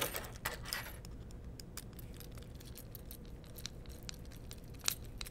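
Small metal bolts and a hand tool clicking and scraping against clear plastic bed-assembly parts as they are handled and fastened: scattered light ticks at irregular intervals, one a little louder near the end.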